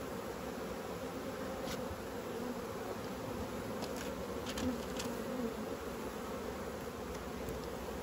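Honeybees buzzing steadily over an opened brood box, the even hum of a colony exposed during an inspection, with a few faint ticks in the middle.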